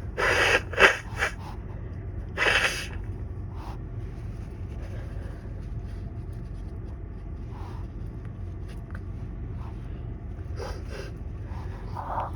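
Harsh stifled sneezes from a person stuffed up with a cold: a breathy burst about half a second in with a sharp held-back peak, and another short burst about two seconds later. Short catches of breath follow near the end.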